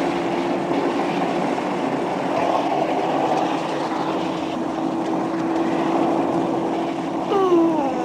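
Open-top car driving at a steady speed: wind and road noise with a steady engine drone. Near the end, a brief falling vocal sound, like a sigh.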